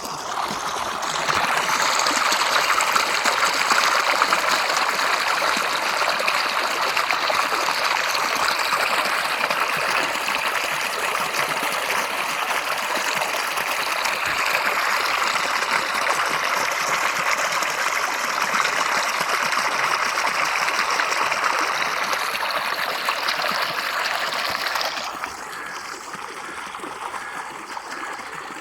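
Stream water flowing and trickling in a steady rush, which drops abruptly to a quieter flow near the end.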